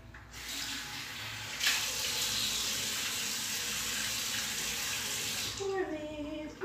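Water running steadily from a tap into a sink, stronger from under two seconds in and shut off suddenly near the end. A woman hums briefly as it stops.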